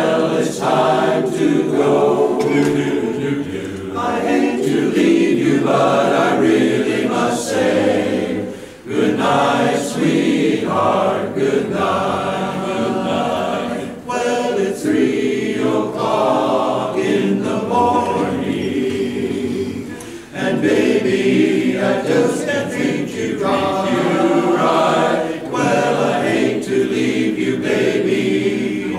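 Barbershop chorus singing a cappella in close harmony, with brief breaks between phrases about nine and twenty seconds in.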